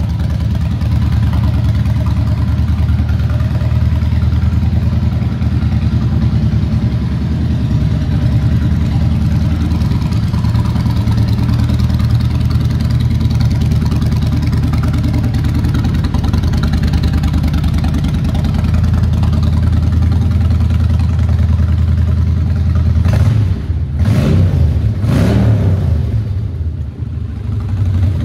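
Kawasaki VN1500 V-twin with short exhausts idling steadily, then revved in a few quick blips near the end, the pitch rising and falling with each.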